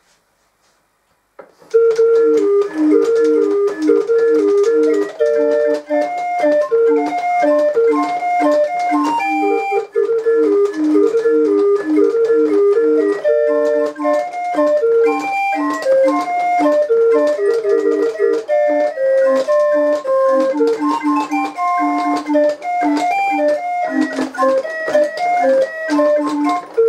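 A hand-cranked Norwegian barrel organ from around 1880, playing a tune from its pinned barrel on wooden pipes: a melody over a steady repeating accompaniment, starting about a second and a half in, with faint mechanical clicking under the notes. The organ awaits restoration, its bellows and some of its pipes in need of attention.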